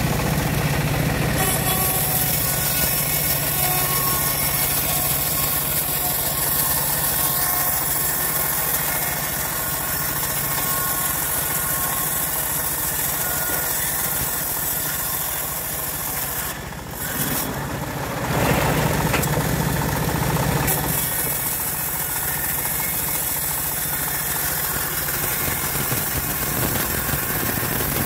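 Homemade engine-driven bandsaw mill running steadily, its band blade sawing lengthwise through a log: a steady engine hum under a cutting hiss. About 17 seconds in, the sound dips briefly, then grows louder for a few seconds.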